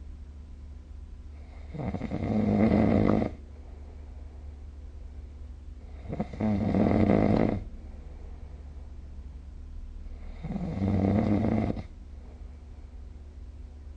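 A sleeping person snoring: three snores, each about a second and a half long, coming regularly about every four seconds.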